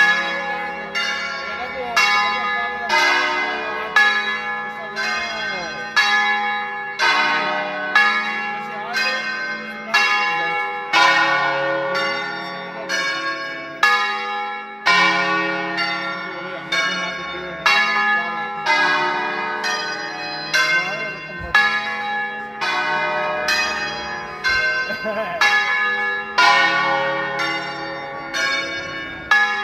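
A concert of ten bronze church bells tuned in D-flat, rung in the Veronese system: the bells swing full circle and sound one after another in melodic sequences. There are about one to two strikes a second, each bell ringing on into the next.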